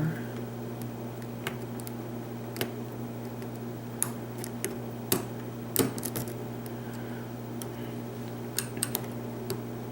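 Scattered small clicks and ticks of a lock pick and tension wrench working the pins inside a pin-tumbler padlock, irregular and a few seconds apart, bunching up near the middle and near the end, over a steady low hum.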